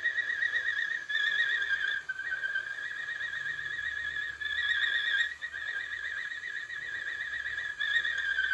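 A man whistling one long, high note with a fast tremble. The pitch shifts slightly up and down, with brief breaks about every second or two.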